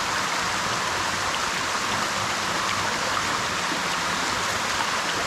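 Steady rush of water from a small seasonal waterfall cascading over rock.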